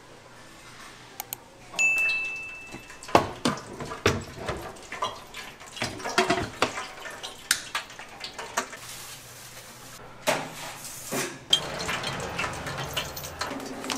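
Kitchen clatter at a food stall: metal utensils and dishes knocking and clinking many times, with a short high steady tone about two seconds in.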